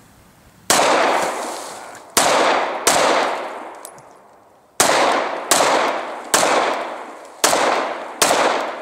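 Eight shots from a Glock 19 Gen 4 9mm pistol fired in an uneven string, the first just under a second in, each crack followed by a long fading echo.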